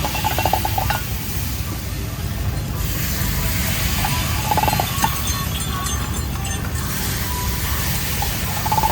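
Steady low hum under three brief runs of light metallic clinking and scraping, a few seconds apart, from metal utensils at a bandros mould.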